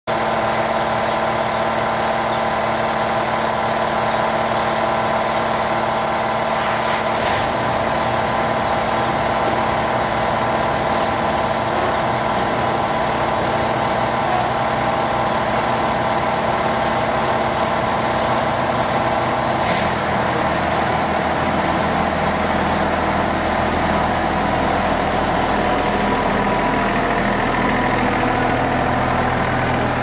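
Riding lawn mower's small engine running steadily, its note shifting slightly about a quarter of the way in and again past halfway as the mower moves off.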